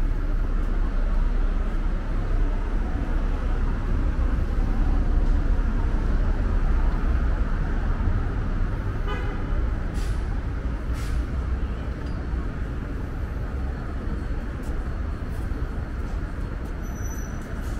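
Steady low rumble of road traffic on a busy city street. About nine seconds in there is a short pitched toot, followed by a couple of sharp clicks.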